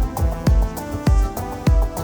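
Background electronic music: a deep kick drum beating steadily, about every 0.6 s, under held synth notes.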